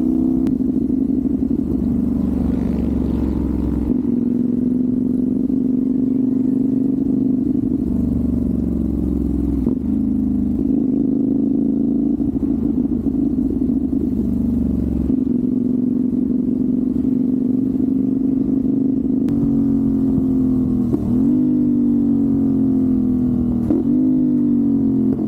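CFMoto 450SR parallel-twin motorcycle engine running under way at a fairly steady speed, with two quick throttle blips in the last several seconds, the rev-matching blips of downshifts.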